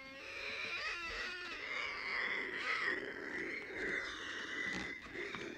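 A man imitating a velociraptor with his voice: short squawks that slide up and down about a second in, then a long, high, breathy cry held for about three seconds.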